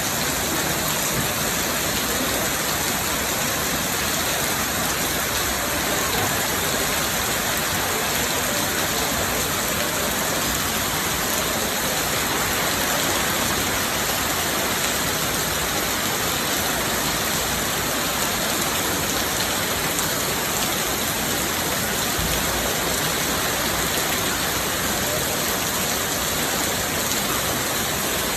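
Steady rainfall: an even, unbroken hiss of rain that holds at the same level throughout.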